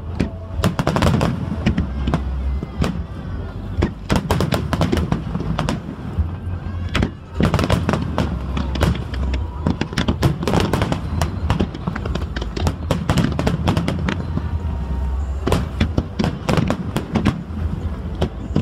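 Fireworks display: a rapid, irregular barrage of sharp bangs and crackles from bursting shells, over a continuous low rumble.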